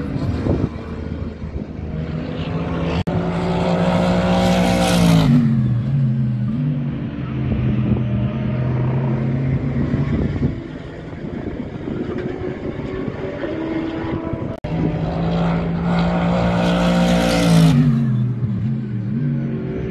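Race car engines going by on the circuit. Two cars pass loudly about three seconds in and again about fifteen seconds in, each engine note falling as it goes by, with quieter engine sound from cars elsewhere on the track in between.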